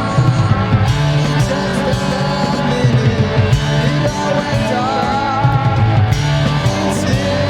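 Rock song from a 1970s-style 45 RPM single, played loud and steady: guitars, bass guitar and drums keep up a driving beat.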